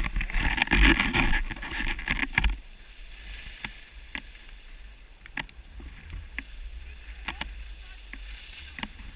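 Skis sliding and scraping on groomed snow, loudest in a hissing scrape for the first two and a half seconds, then quieter gliding with scattered sharp clicks, over a steady low wind rumble on the microphone.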